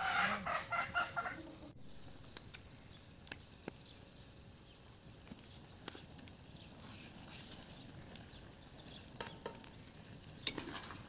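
A hen clucks for about a second and a half at the start. After that, quiet frying in a pan over a wood fire, with scattered clicks of a utensil against the pan.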